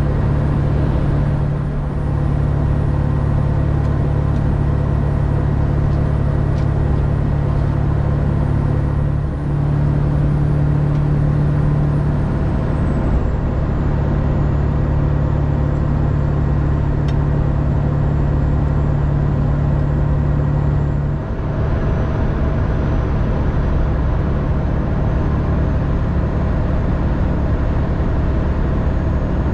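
Steady drone of a 2000 Ford F350 Super Duty's 7.3L turbo diesel and its tyres heard from inside the cab while cruising at highway speed. The drone dips briefly twice, and its tone shifts slightly after the second dip.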